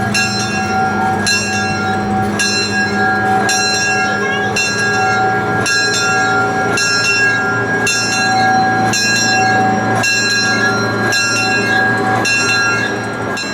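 Locomotive bell ringing steadily, one stroke about every second, over the steady low rumble of the small 0-4-0 train.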